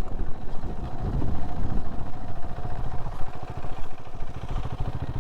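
Vehicle driving along: a steady engine drone and low road rumble, with a faint steady whine above it.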